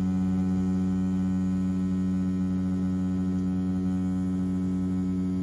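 BRONC V10 rotary tattoo machine running at 7.5 volts on its soft-hit setting, driving a 14 round shader needle into practice skin: a steady, even low hum.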